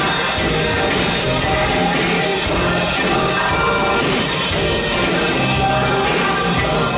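Pearl drum kit played live in a steady groove along with a recorded pop backing track that has singing.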